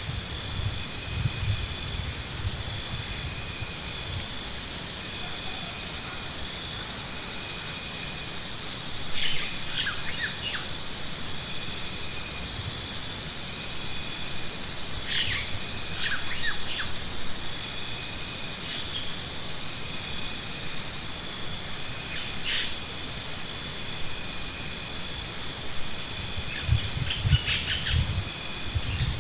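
High-pitched insect-like trilling: rapid pulsed chirps repeating in runs of a few seconds with short pauses, over a steady high whine, with a few faint clicks.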